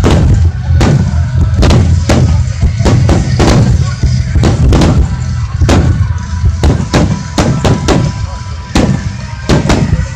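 Aerial firework shells of a large finale barrage bursting in quick succession, roughly two sharp bangs a second, over a continuous low rumble.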